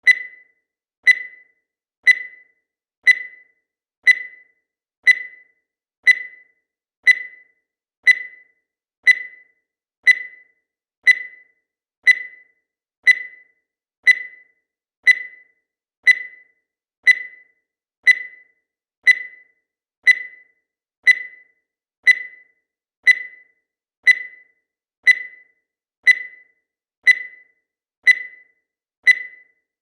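Digital timer beeping once every second, a short high beep that dies away quickly, repeated at an even pace.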